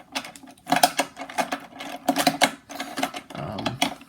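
Rubik's brand 3x3 cube being turned one-handed: rapid runs of plastic clicking and clacking in bursts, with short pauses between turn sequences.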